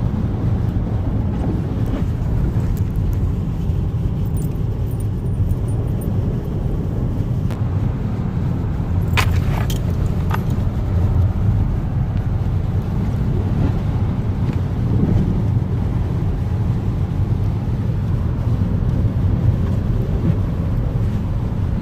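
Steady low rumble of a car's engine and road noise heard from inside the cabin while driving. A couple of brief clicks come about nine and ten seconds in.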